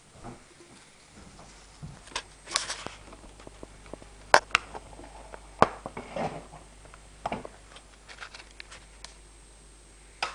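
Camera handling noise: irregular sharp clicks and knocks with short rustles between them, the two loudest clicks about four and five and a half seconds in, over a faint steady low hum.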